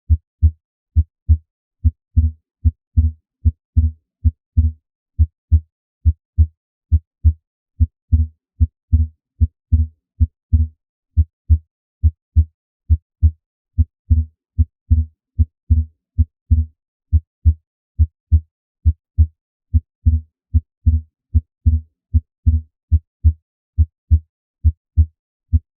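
Heart sounds heard through a stethoscope: a steady lub-dub rhythm of S1 and S2, a pair of low thumps a little under every second. The second sound is split, the physiologic (transient) split S2 that widens with inspiration as the pulmonic valve closes later than the aortic.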